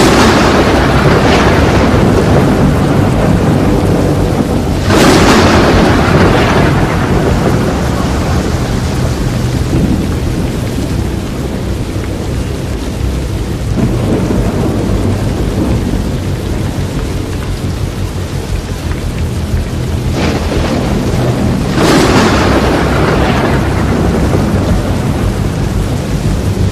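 A tornado's storm noise: a continuous heavy rushing rumble with rain, broken by several sudden loud thunder-like surges that each die away over a second or two.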